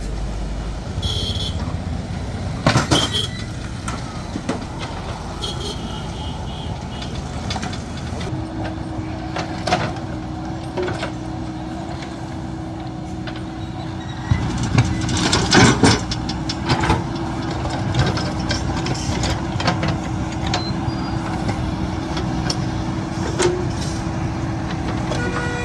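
Diesel engine of a JCB backhoe loader running steadily, with scattered metallic clanks and knocks, the loudest cluster about two-thirds of the way through. A steady whine comes in about a third of the way through and holds to the end.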